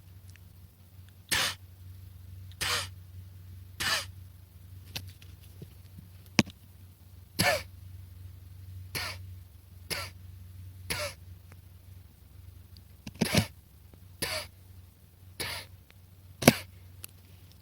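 A frightened hedgehog making short, sharp sneeze-like huffs, one about every second, a dozen or so in a row.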